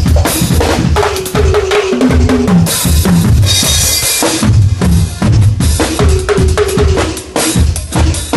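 Acoustic drum kit played in a busy groove: quick bass drum and snare hits with tom fills stepping down in pitch, and a cymbal crash ringing for about a second and a half around three seconds in.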